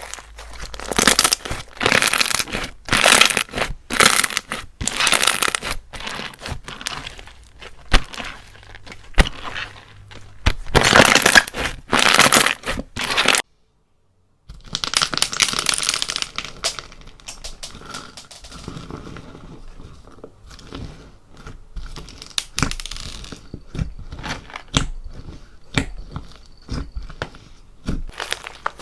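Crunchy slime being squished and stretched by hand, giving dense crackling and popping with louder crunches. It breaks off for a second about halfway, then goes on more softly.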